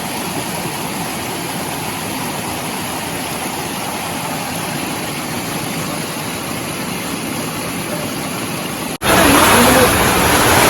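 Flowing water rushing steadily. It breaks off for an instant about nine seconds in and comes back louder.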